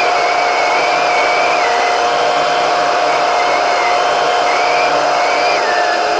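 Steady, loud machine noise: a continuous hiss with a constant mid-pitched hum and a higher whistle that wavers slightly, from a snowmobile-trail grooming machine running at a steady pace.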